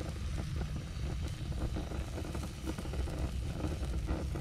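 Grill fire and fish on a cedar plank crackling and sizzling over a steady low rumble.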